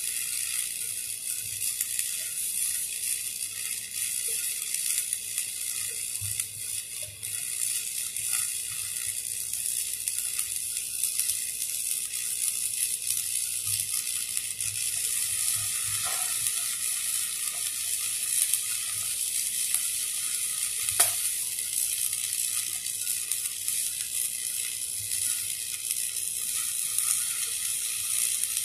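Stick (shielded metal arc) welding on a 3-inch steel pipe, the arc sizzling steadily, with an occasional faint sharp click.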